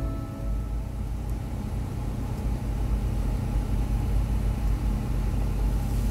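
Steady low rumble of a car's engine and road noise heard from inside the cabin while moving slowly in traffic.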